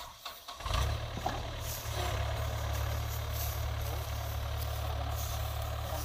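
Yanmar AW82V combine harvester's diesel engine comes in suddenly about a second in with a low drone, then runs steadily.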